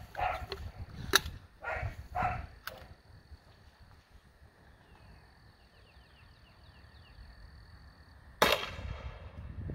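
A 37mm launcher fires a chalk round on a light 15-grain charge of Triple F Pyrodex: one sharp pop about eight seconds in, with a brief ringing tail. Earlier, a couple of sharp clicks come from handling the launcher.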